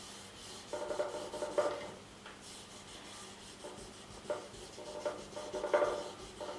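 Fingers rubbing chromium oxide paste into a leather paddle strop, spreading it toward the edges: a soft scratchy rubbing in short bouts, once about a second in and again through the second half.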